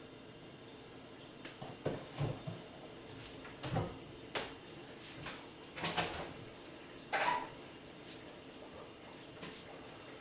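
Kitchen cabinet doors and things inside them being handled: a scattered run of knocks and clunks, the loudest about seven seconds in, with one faint knock near the end.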